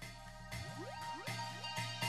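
Background music with a regular pulse and rising pitch sweeps, swelling toward the end.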